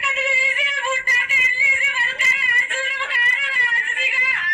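A young woman wailing and crying in distress, her high voice wavering up and down almost without a pause.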